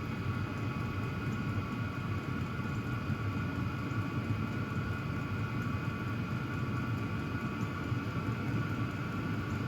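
Hcalory portable diesel heater running steadily near its highest setting, warmed up: a steady rush of its blower fan over a low rumble, with a faint steady whine. Nice and quiet, while moving a great deal of air.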